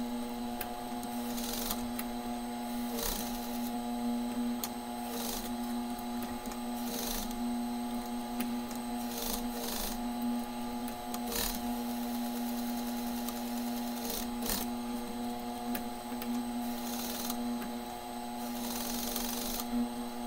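Juki industrial sewing machine stitching over a tear in denim jeans: its motor hums steadily while the needle runs in short bursts every second or two as the fabric is worked forward and back.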